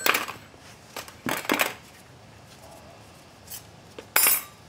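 Steel clutch plates clinking against one another and against a 1995 Harley Sportster's clutch basket as plates are picked from a stack and fitted in. There are a few sharp metallic clatters, the loudest about four seconds in with a brief ring.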